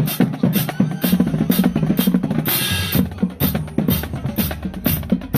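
Marching band drumline playing a cadence: snare drums, bass drums and crash cymbals beating a steady rhythm, with a short roll about halfway through.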